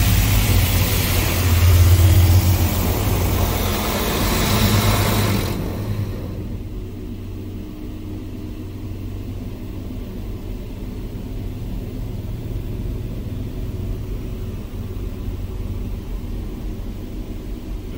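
Laserwash G5 touchless car wash spraying high-pressure water onto a car, a loud hiss drumming on the glass and body that stops abruptly about five and a half seconds in. A low steady rumble of machinery continues after the spray stops.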